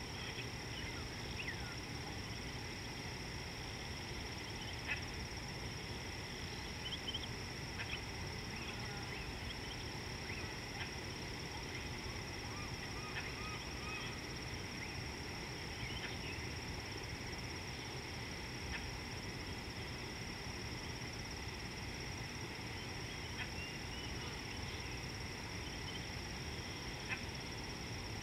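Steady high insect drone with scattered short bird calls on top, over a low rustling background.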